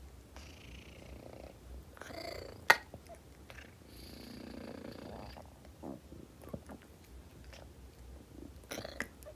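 A domestic cat making low, breathy vocal sounds in several short bouts. One sharp click about two and a half seconds in is the loudest sound.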